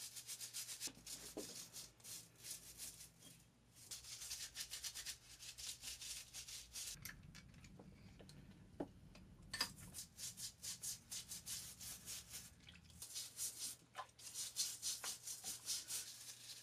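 Stiff brush scrubbing degreaser-soaked metal lathe parts over a tub, faint quick back-and-forth strokes in three spells. A few light knocks fall in the pause between them.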